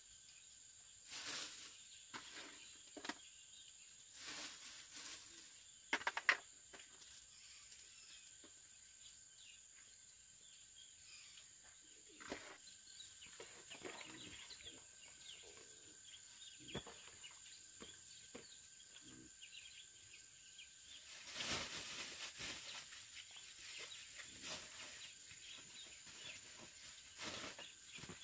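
Faint rural outdoor ambience: insects keep up a steady high-pitched drone, over scattered rustles and knocks. There is a short sharper cluster of knocks about six seconds in and a longer stretch of rustling about three-quarters of the way through.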